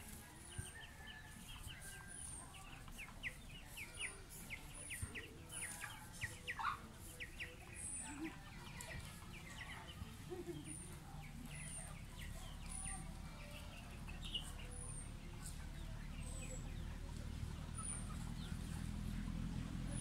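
Free-range chickens clucking around the coop, with a short high chirp repeating about once a second. A vehicle's low engine rumble grows louder over the last several seconds.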